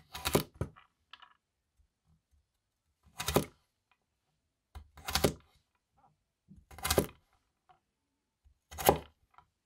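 Winco KC-401 stainless steel vegetable cleaver scraping flat across a wooden cutting board, sweeping diced carrot cubes into a pile. Five short scrapes, about every two seconds.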